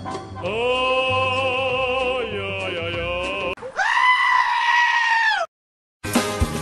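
Edited-in comic sound clips over title cards: a long wavering bleat-like held cry, then a louder held cry that falls away at its end and cuts off into a moment of silence. Upbeat rhythmic music starts near the end.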